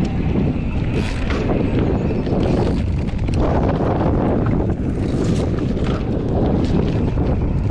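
Wind rushing over the microphone of a camera carried on a moving bike, a steady loud noise with a few short clicks and rattles.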